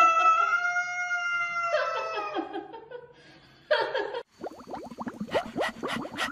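A cat's long, steady yowl, an aggressive warning at another cat, fading out about two seconds in, followed by short harsh bursts. About four seconds in it gives way to music with quick plucked notes.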